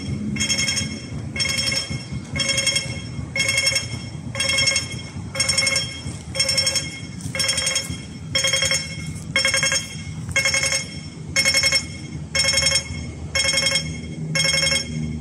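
Audible pedestrian traffic-light signal beeping: a short, buzzy electronic tone repeated about once a second at a steady pace, over a low background rumble.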